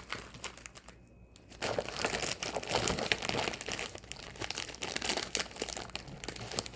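Plastic Oreo packaging crinkling and rustling as the cookies are handled and packed into a container: a dense run of small crackles, with a brief pause about a second in.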